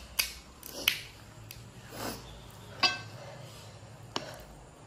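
Someone eating panipuri close to the microphone: scattered sharp mouth clicks and smacks, about five over a few seconds, with a brief murmur of a voice near the middle.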